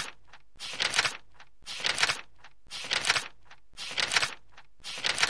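A crackling, crunching noise that repeats in a steady rhythm about once a second, each burst lasting about half a second.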